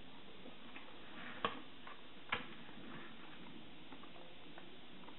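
Small clicks and ticks from handling a clear plastic food tray and wooden chopsticks, with two sharper clicks a little under a second apart, over a steady hiss.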